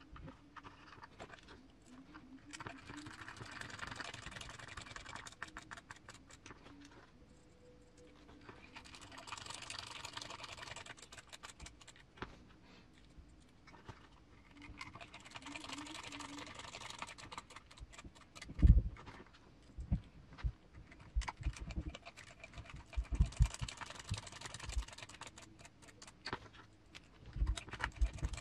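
Small screws and plastic transmission parts being handled and driven by hand into the gearbox case: constant light clicking and rattling, with four stretches of a few seconds of scraping as screws are turned. A few sharp knocks on the bench, the loudest about two-thirds of the way in.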